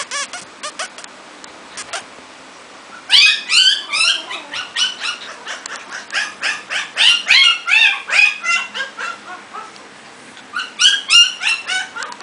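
Teacup Shih Tzu puppy giving rapid runs of short, high-pitched yips. There is a pause of about two seconds after the first second, then a long run, a brief lull, and a last burst near the end.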